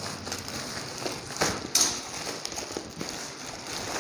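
Thin plastic carrier bag rustling and crinkling as a padded gun bag is pulled out of it, with a couple of sharper crackles about one and a half seconds in.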